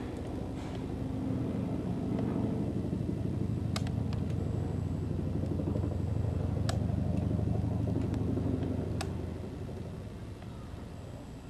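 Helicopter flying overhead: a low, rapidly pulsing rotor rumble that grows louder about a second in, holds, and fades away near the end. A few faint sharp clicks sound over it.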